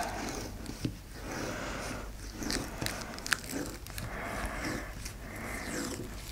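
Tape being pressed and smoothed by hand along a diamond painting canvas, crackling and rustling under the fingers, with a couple of sharp clicks.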